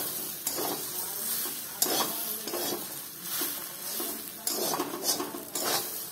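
A steel spatula scraping and stirring a thick grated beetroot, carrot and potato mixture in a steel kadhai, in strokes about once a second, with a steady sizzling hiss of the hot mixture underneath as it roasts.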